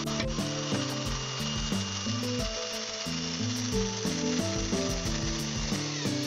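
Background music with a steady beat and held notes, over the steady hissing whir of a 24-volt cordless drill, mounted in a hand drill press, boring into plywood.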